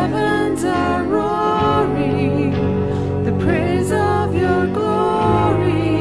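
A woman sings a worship song, "The heavens are roaring, the praise of your glory," over electric guitar accompaniment. The low chord underneath changes about a second and a half in and again near the end.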